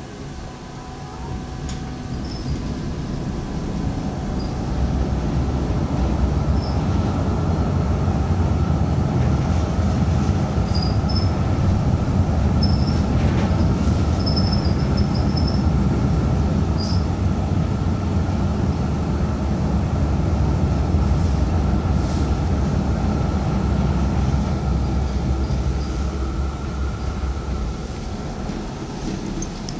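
Light-rail tram running on its rails, heard from inside the car: a low rumble that builds over the first few seconds as it picks up speed, holds steady, and eases near the end as it slows. A faint steady whine runs under it, with a few brief high squeaks in the middle.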